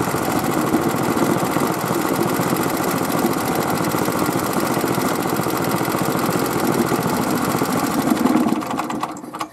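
Small single-cylinder Robin petrol engine running steadily with its fast even firing beat after being repaired. Near the end it is shut off by hand and the sound dies away within about a second.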